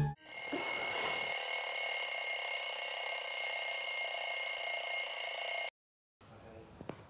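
Mechanical twin-bell alarm clock ringing, its hammer rattling rapidly against the bells in one steady high ring. It cuts off suddenly after about five and a half seconds.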